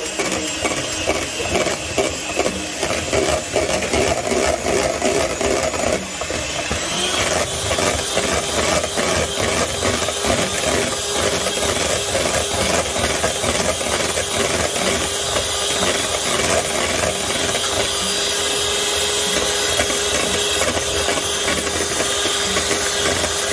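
Electric hand mixer running steadily, its beaters whipping cream cheese as liquid cream is poured in. About seven seconds in, the motor settles into an even hum.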